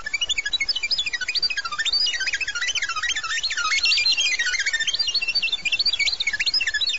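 Sci-fi synthesizer sound effect: a rapid stream of high electronic beeps that jump up and down in pitch, warbling without a break.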